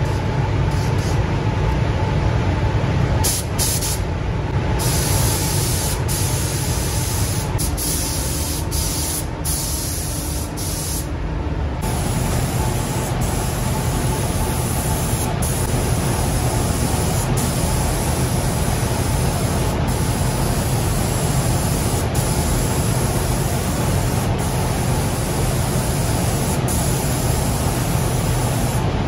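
Compressed-air gravity-feed spray gun hissing as primer goes onto a car's bare bodywork panels, over the steady running of the paint booth's ventilation fans. The trigger is let off briefly a few times in the first twelve seconds, then the spraying runs on without a break.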